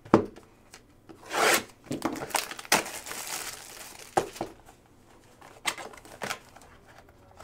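Plastic shrink wrap crinkling and tearing as it is ripped off a sealed box of trading cards, in several separate rustles, the loudest about a second and a half in, with a few light knocks of the box being handled.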